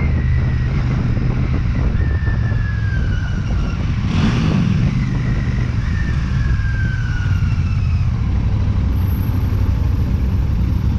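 Royal Enfield Shotgun 650's 648 cc parallel-twin engine running under way, its pitch falling twice as the revs drop. A short burst of noise about four seconds in.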